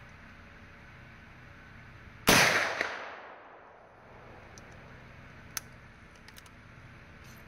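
A single gunshot from an 1863 New Model Sharps cavalry carbine reproduction in .45-70, a sharp report a little over two seconds in that rings off and fades over about a second. A few light metallic clicks follow as the carbine's breech is worked, the sharpest a couple of seconds after the shot.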